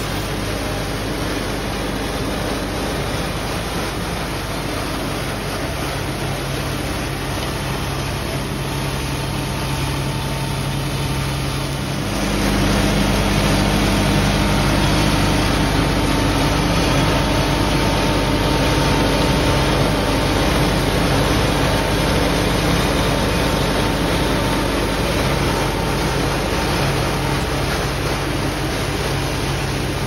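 John Deere 5305 tractor engine running under load as it drives a PTO-powered Lemken Spinel 250 flail mulcher through rice straw. About twelve seconds in, the sound gets louder and deeper and stays so.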